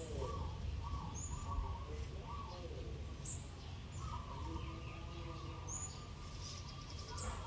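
Short, high bird chirps a few times, over a steady low background rumble.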